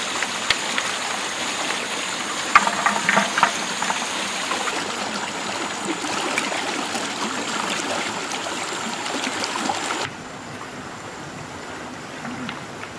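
Shallow stream running over rocks, with a few sharp knocks in the first few seconds; the water sound drops in level about ten seconds in.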